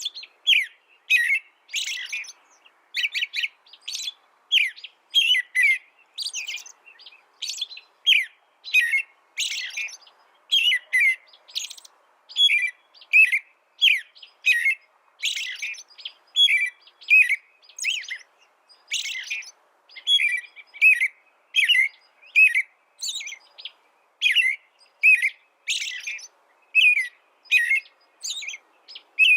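A small songbird calling in short, high chirps repeated about twice a second without a break.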